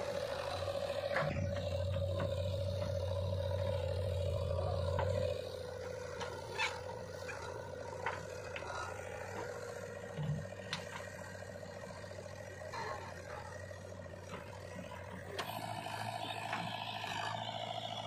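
JCB 3DX backhoe loader's diesel engine working as its bucket tips red soil into a tractor trolley. The engine runs harder for about the first five seconds, then settles lower and picks up again near the end. Scattered clunks and scraping come from soil and stones dropping into the steel trolley.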